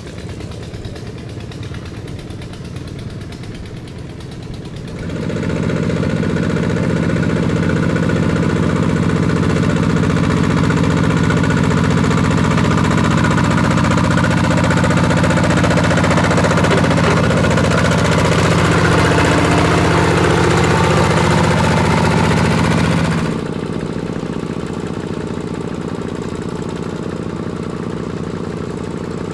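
Two-wheel walking tractor's single-cylinder diesel engine running steadily under load as it pulls cage wheels and a plow through wet paddy soil. It sounds much louder and closer from about five seconds in until about six seconds before the end.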